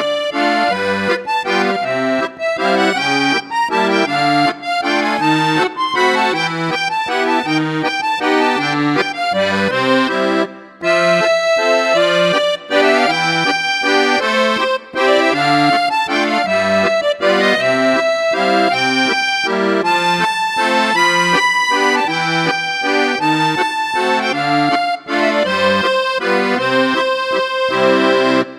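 Accordion music: a lively melody over an alternating bass-and-chord accompaniment.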